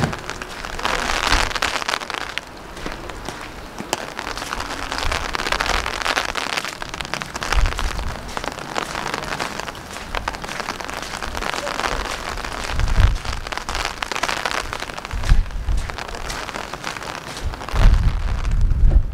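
Steady rain falling on wet ground, a fine hiss full of small drop ticks that swells and eases, with low gusts of wind buffeting the microphone a few times in the second half.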